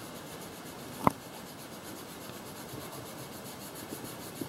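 Colored pencil scratching steadily on paper while shading in a drawing, with one sharp tap about a second in.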